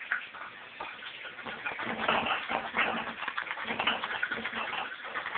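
Shaving brush working freshly wetted Tabac tallow shaving soap into lather, a continuous irregular wet churning of bristles in thick soap.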